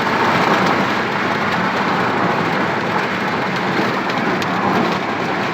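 Steady road and engine noise of a vehicle on the move.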